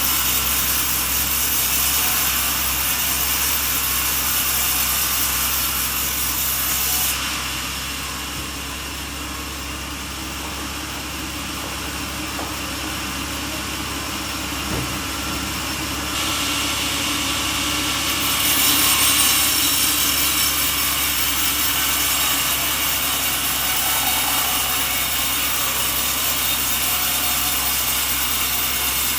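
Sawmill saw cutting through coconut wood: a steady, dense rasping hiss. The high part of the hiss thins out for about ten seconds in the middle, then comes back.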